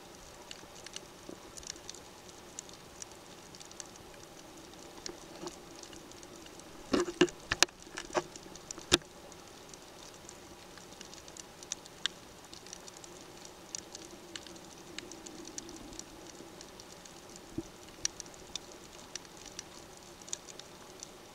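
Underwater coral-reef crackle: a steady scatter of sharp clicks typical of snapping shrimp, over a faint steady hum. A brief cluster of several louder clicks and knocks comes about seven to nine seconds in.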